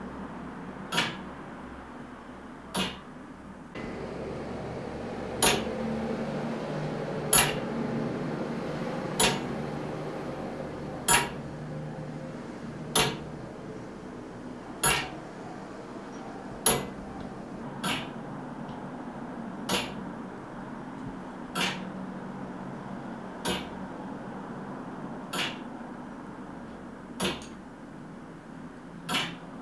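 A clock ticking at a slow, even pace, one sharp tick about every two seconds, over a steady low hum.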